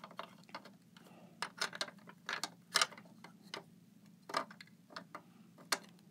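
Small plastic toy pieces clicking and clattering against a plastic toy ice cream truck as a hand picks them up and sets them down: a string of irregular light clicks and knocks.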